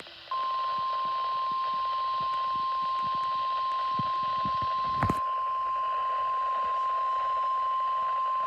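NOAA Weather Radio 1050 Hz warning alarm tone: a single steady high-pitched tone that starts just after the beginning and holds unchanged, over radio hiss. A brief sharp click comes a little past halfway. The tone signals that a warning message, here a severe thunderstorm warning, is about to be read.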